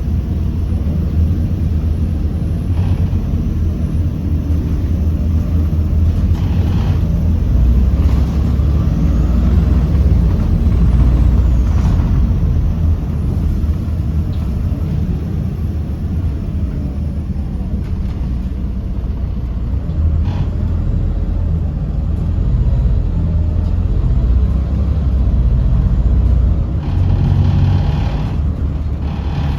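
Volvo B7RLE bus's Volvo D7E diesel engine running under way, a steady low rumble that swells and eases with the Voith automatic gearbox, with a faint high turbo whine rising and falling. A few short hisses of air are heard, the loudest near the end.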